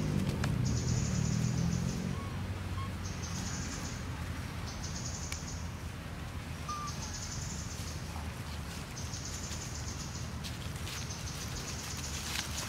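A high, even buzzing call, repeated about six times, each lasting about a second with short gaps between, over a low steady rumble. A low pitched sound is heard during the first two seconds.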